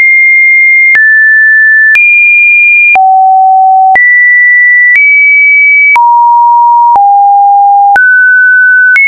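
Webdriver Torso slideshow tones: computer-generated sine-wave beeps, one steady pure tone per slide lasting about a second each. The pitch jumps to a new random height every second, now high, now mid, with a faint click at each change. About nine tones follow back to back at a loud level.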